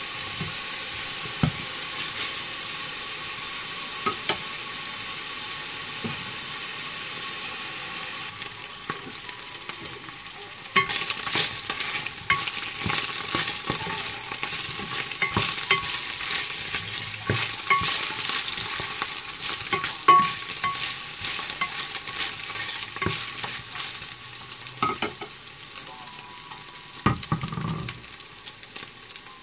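Turkey pieces sizzling in hot oil in a stainless steel pan, with a spatula scraping and knocking against the pan as they are stirred. The scraping and knocking come thick and fast from about ten seconds in and die down near the end.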